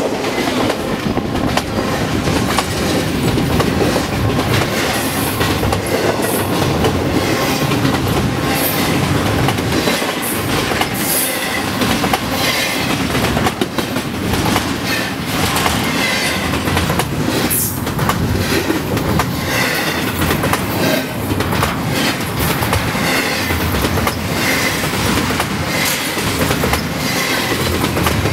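Freight train cars rolling past close by: a steady heavy rumble of steel wheels on rail, with repeated clacks as the wheels cross rail joints and a few brief high-pitched wheel squeals.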